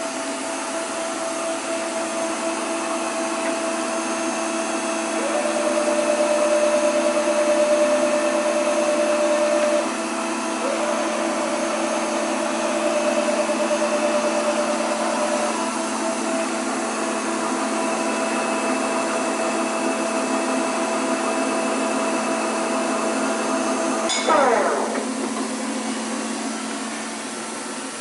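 Weiler E70x3000 CNC lathe running under power: a steady machine whine whose pitch steps a few times, then a quick falling whine about 24 seconds in as the drive winds down.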